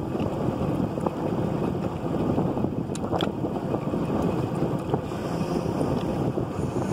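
Motorboat engine idling out of gear, a steady low running sound, with wind buffeting the microphone.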